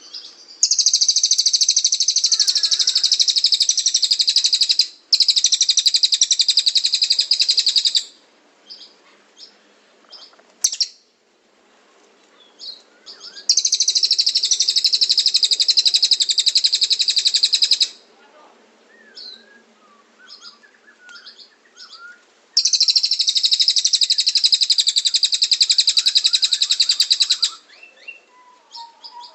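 Cililin bird singing: long, very rapid, high-pitched trills lasting about three to five seconds each, four of them with short gaps, and scattered short chirps in between.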